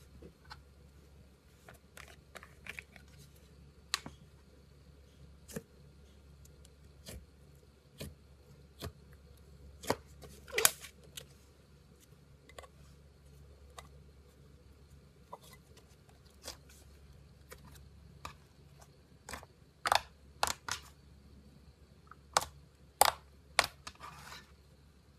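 Slime being squeezed and pulled by hand, giving sticky pops and clicks at irregular intervals, with a few louder clusters of pops.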